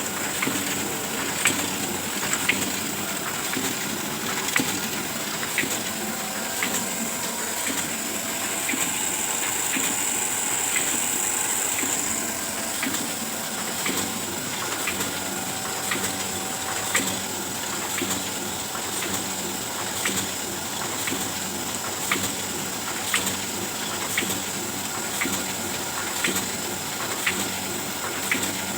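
Oliver 72 sheet-fed offset printing press running, a steady mechanical hiss with a regular click about once a second as it cycles sheets.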